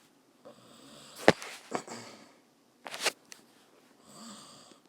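A person breathing and sniffing close to the microphone, with a sharp click about a second in and another short noise near the three-second mark.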